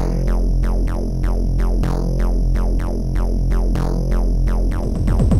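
Electronic intro music from an Amiga demo, with a drum-machine beat of short falling-pitch hits about four a second over a held bass. Near the end a quick run of falling sweeps leads into the next section.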